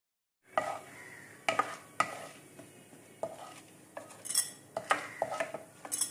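Wooden spoon stirring chana dal frying in hot oil in a pan, with irregular sharp knocks of the spoon against the pan over a faint sizzle. The sound starts about half a second in.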